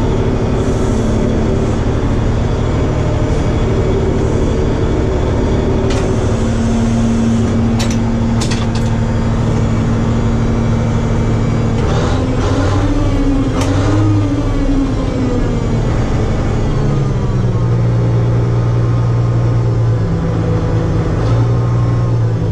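Bizon combine harvester's diesel engine running, heard from inside the cab, with a few sharp knocks in the first half. About halfway through the engine note rises, then falls back a few seconds later and settles lower.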